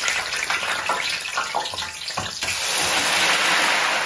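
Chips and the wire basket of an electric deep fryer clattering as the basket is handled, then, about two and a half seconds in, the basket goes into the hot oil and the oil hisses and bubbles loudly as the chips start to fry.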